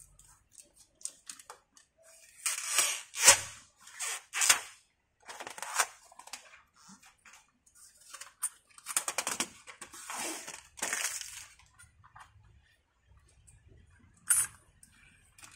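Plastic polarizer film crackling and crinkling in irregular bursts as it is peeled and torn by hand off an LCD panel's glass, in two main spells of crackling.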